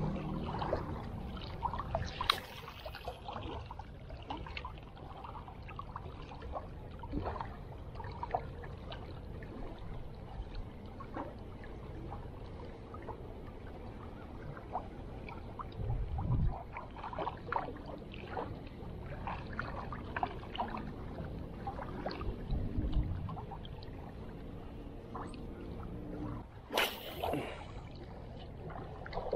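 Small waves lapping and trickling against shoreline rocks, with scattered light clicks and knocks from handling a spinning rod and reel. A short whoosh comes near the end.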